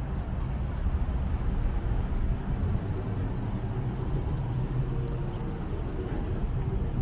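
Outdoor ambience of vehicle traffic: a steady low rumble with a faint engine hum joining a few seconds in, and wind buffeting the microphone.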